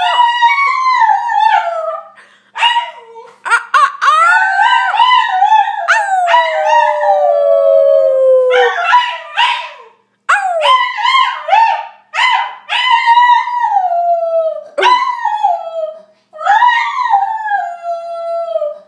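Shiba Inu howling in a string of long, high-pitched calls, each sliding down in pitch, with short breaks between them. The longest call, starting about four seconds in, falls steadily for several seconds.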